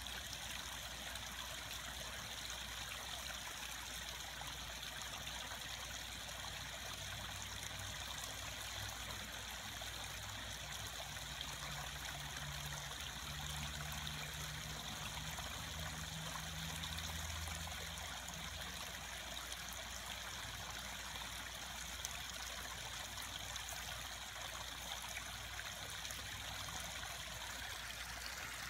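Steady trickle of running water, unbroken throughout. A faint low hum joins it for a while in the middle.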